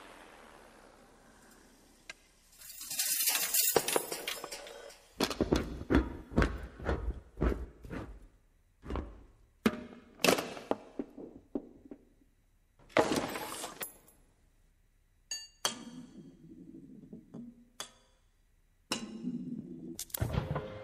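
Honda Accord car parts knocking, clinking and rolling into one another in a chain reaction on a wooden floor. A rushing hiss comes about three seconds in, then a long run of separate knocks, clinks and rattles with short pauses between them.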